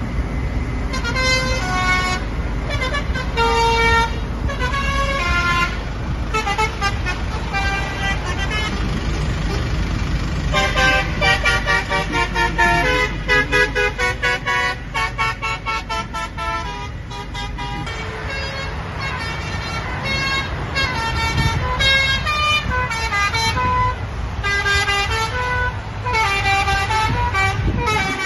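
Truck's telolet horn, a set of multi-tone air horns, playing a long run of short musical notes that step up and down in pitch, with a faster stretch of quickly repeated notes in the middle. The engine runs low underneath.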